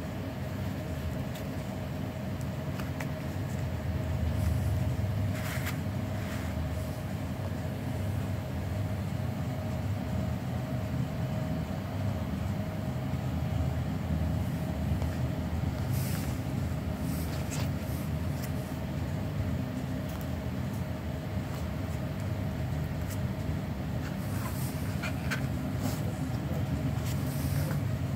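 A steady low rumble of background machinery or traffic with a faint constant hum. A few light clicks and rustles come from the sandals being handled.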